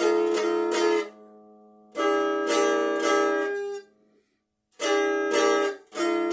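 Guitar strummed in three short bursts of chords with pauses between, several quick strokes in each burst, a low note ringing on beneath the first two.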